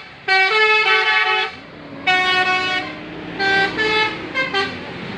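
Bus 'telolet basuri' musical horn playing a tune: a quick phrase of stepped notes, a pause, one longer held note, then a run of short notes.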